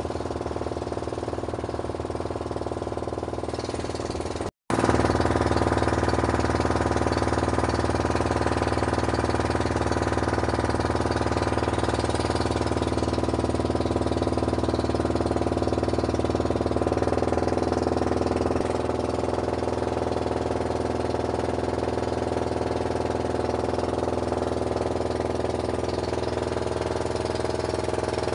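Small motorboat engine running steadily while under way, heard from on board. It cuts out for a split second about four and a half seconds in and comes back louder, and its note drops slightly later on.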